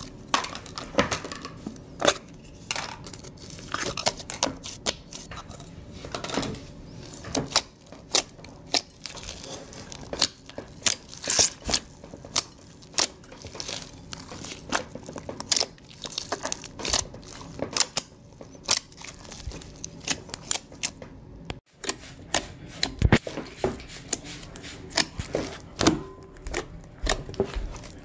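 Slime being squished, folded and kneaded by hand in a glass bowl: an irregular run of wet clicks, pops and squelches.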